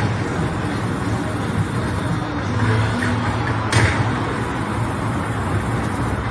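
Konami Bull Rush poker machine playing its hold-and-spin feature sounds: a steady low rumble, with a sharp hit at the start and again about four seconds in as a respin lands.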